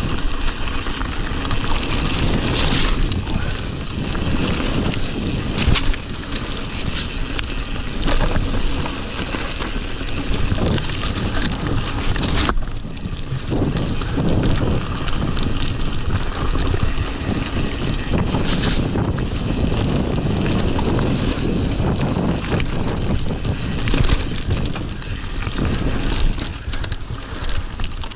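Mountain bike riding fast down gravel singletrack: steady wind buffeting the microphone over tyre noise on gravel and the bike's rattle, with a few sharp knocks from bumps in the trail.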